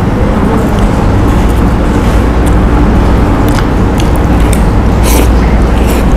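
Electric fan running close to the microphone, a loud steady rumble with a buzz, and a few light clicks over it.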